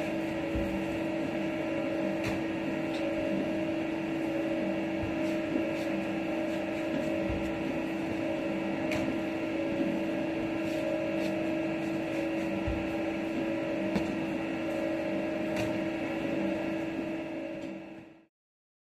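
Steady hum of bakehouse machinery, made of several constant tones, with scattered soft knocks and taps as rye rolls are shaped by hand on a floured bench. The sound fades out near the end.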